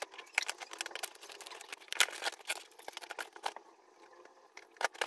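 A taped cardboard parcel being pulled open by hand: an irregular run of crackles, rips and scrapes as the packing tape and a cardboard flap give way, easing off briefly a little before the end.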